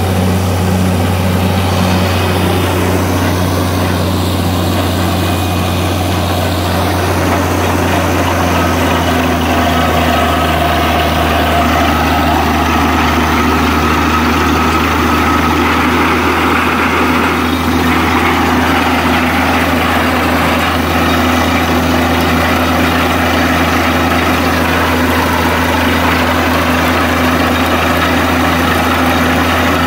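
Borewell drilling rig's engine running steadily, a constant low drone with no breaks.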